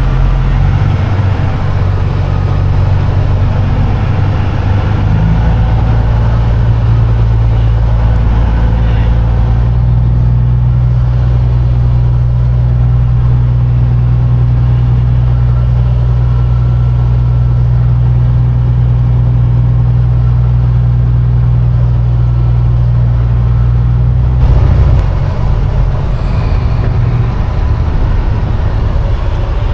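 Peterbilt semi truck's diesel engine running as the truck creeps slowly across the fuel lane, a steady low drone that rises in pitch about five seconds in and drops back near the end.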